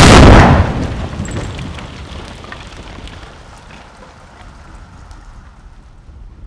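Staged pyrotechnic explosion in a wooden barn set: a sudden, very loud blast that dies away over about two seconds, followed by scattered crackles as flames burn and debris comes down.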